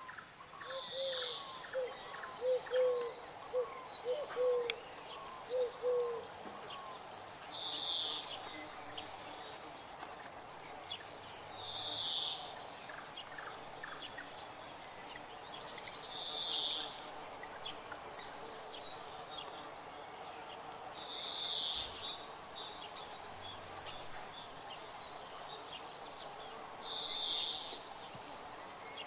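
Birds calling. One bird gives a loud, high call about a second long every four to five seconds, over many short high chirps from other birds. During the first six seconds a lower short note repeats about twice a second.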